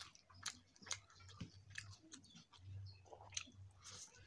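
Faint, wet chewing and lip smacks of a person eating a mouthful of rice and potato-cauliflower curry, with irregular clicks several times a second.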